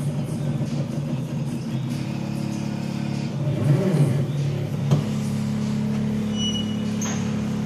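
Stepper motors of a CNC gantry whining as the machine traces letters, with several steady tones that shift in pitch as the axes change speed. A rising-and-falling sweep comes about four seconds in, and there are sharp clicks near five and near seven seconds.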